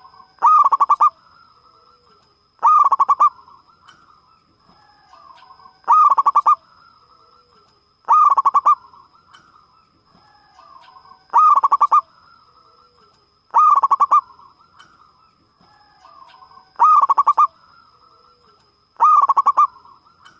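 Zebra dove (local perkutut) cooing. Eight loud, rapid trilling coos, each about half a second long, come roughly every two to three seconds, with softer, lower coos between them.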